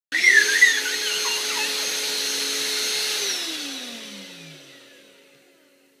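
Dyson cordless handheld vacuum cleaner switched on with a steady high-pitched motor whine, then released about three seconds in, its motor winding down with a falling pitch and fading out. A child's brief high squeals sound over it in the first second or so.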